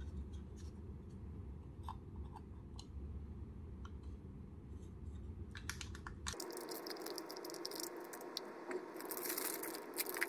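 Faint clicks as a tiny plastic accessory box is turned in the fingers. From about six seconds in, a clear plastic bag around a mini figure crinkles steadily as it is handled and unwrapped.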